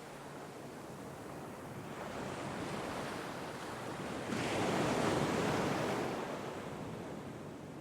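Gentle sea waves washing ashore: the surf swells, one wave breaks a little past four seconds in, and its wash fades away over the next few seconds.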